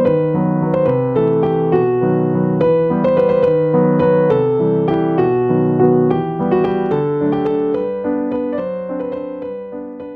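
Background piano music: a gentle melody of single notes over held lower notes, fading out near the end.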